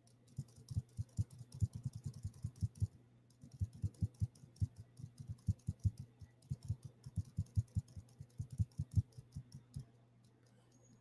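Typing on a computer keyboard: quick, irregular keystrokes in two runs, with a short pause about three seconds in, stopping about a second before the end.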